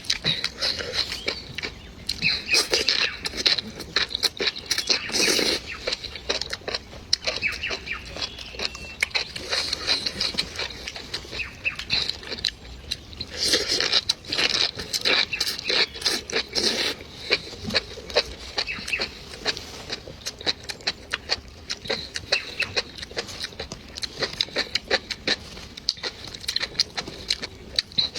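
Close-miked eating sounds: continuous wet chewing, lip smacks and small mouth clicks in an irregular, unbroken patter.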